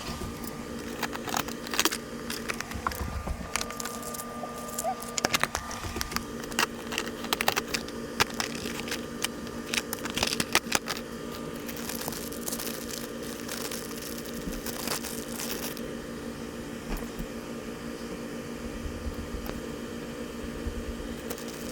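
A steady low hum, with many scattered clicks, taps and crinkling rustles over it, busiest in the first half.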